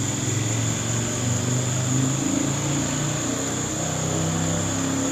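A low, droning motor hum whose pitch shifts slowly up and down, over a steady high-pitched insect chorus.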